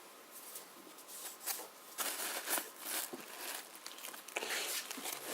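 Sewing machine oil being rubbed by hand over the decalled finish of a vintage White Peerless sewing machine head: soft, irregular rubbing strokes that grow louder about two seconds in.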